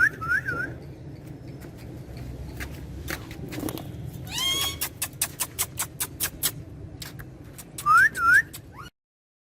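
Short rising whistles: three quick ones at the start and two loud ones near the end. In between comes a single harsher call, then a quick run of about ten sharp clicks. The sound cuts off shortly before the end.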